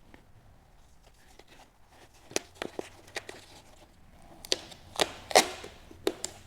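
Hands working a Velcro-backed pad against the plastic shell of an electric unicycle: a scattered string of sharp taps and knocks, loudest about five seconds in, with a short rubbing scrape among them.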